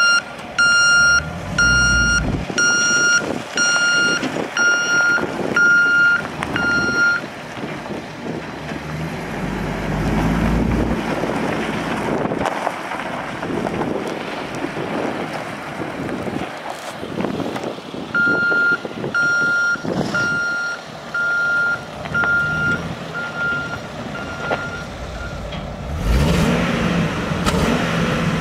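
Box truck's backup alarm beeping about once a second while it reverses, in two runs of about eight beeps each. Its 6.8-litre V10 gasoline engine runs underneath and swells twice with throttle.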